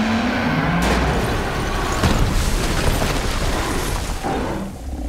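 Loud action-film sound effects: a dense booming rumble with sharp hits about one and two seconds in, with music underneath, easing off near the end.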